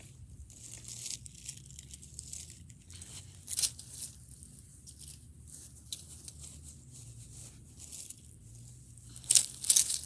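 Dry crackling and rustling close to the microphone, in irregular bursts, with two sharper, louder crackles: one about three and a half seconds in and a cluster near the end.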